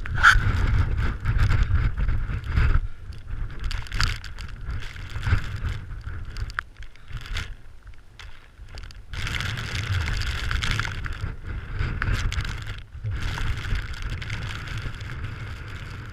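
Gusty wind buffeting the microphone, rising and falling in strength, with scattered clicks and knocks.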